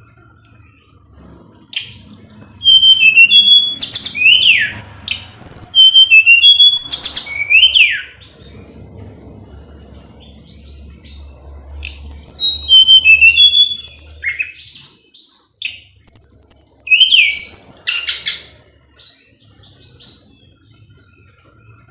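Tledekan gunung (blood-breasted flowerpecker) singing in four loud bursts of high, quick chirps and down-slurred notes, with short pauses between the bursts.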